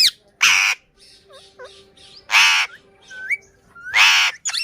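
A parrot screeching: three harsh, loud squawks about a second and a half apart, with short whistled chirps and rising whistles between them.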